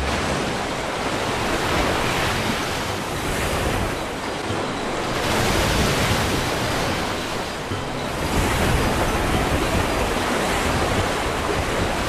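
Ocean surf breaking and washing against a rocky sea cliff. It swells and eases as each wave comes in, loudest about halfway through and again near two-thirds of the way.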